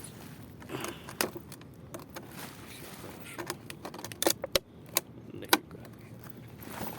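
A series of sharp clicks and light clattering, irregular, with several louder clicks in the second half, over a faint steady background.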